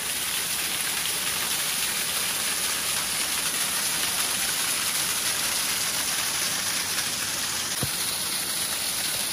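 Small waterfall cascading down a rock cleft: a steady rush of falling water splashing over the rocks.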